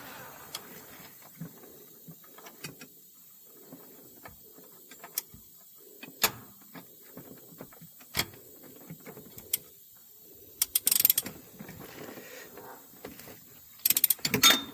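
A thread tap being turned by hand into the aluminum timing chain cover: repeated short scraping strokes as it cuts, with scattered metal clicks. Two bursts of rapid clicking, like a ratchet, come a little past the middle and near the end, the second the loudest.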